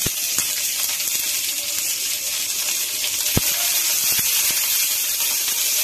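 Sliced onions sizzling in hot oil in a frying pan, a steady hiss, with a few sharp knocks of the spatula against the pan as they are stirred.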